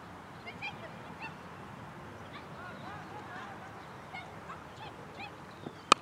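A cricket bat strikes the ball once near the end: a single sharp crack, the loudest sound here. Before it, birds call on and off in the background.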